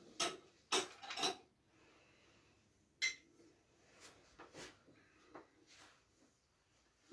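Small vessels being handled and set down: a quick run of three clinks and knocks, then a single sharp, ringing clink about three seconds in, and a few softer knocks after it.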